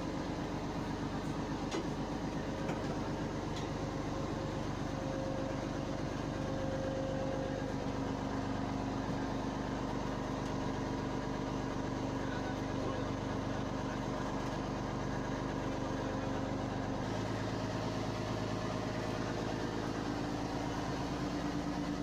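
A fishing launch's inboard engine running steadily under way, a continuous drone whose note shifts slightly about three-quarters of the way through.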